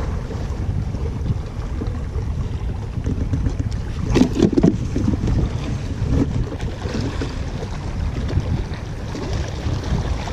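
Wind buffeting the microphone with a steady low rumble, broken by a short cluster of clicks and knocks about four seconds in.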